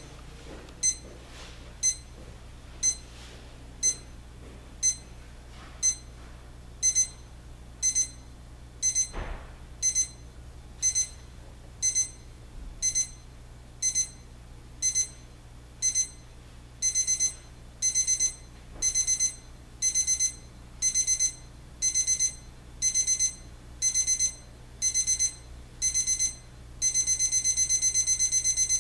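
Digital alarm clock's electronic alarm beeping in a high tone. It starts as one short beep a second, changes to pairs of beeps, then to quick bursts of several, and near the end becomes continuous rapid beeping: an escalating alarm pattern.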